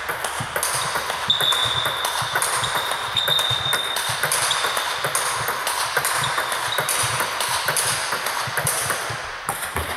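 Table tennis balls clicking in a fast, even rhythm off bats and table in a multiball forehand topspin drill, the fed balls and the returned topspins following close on each other.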